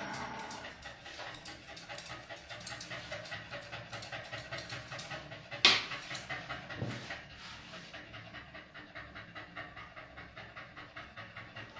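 Mixed-breed dog panting in a quick, even rhythm, with one sharp click a little after halfway.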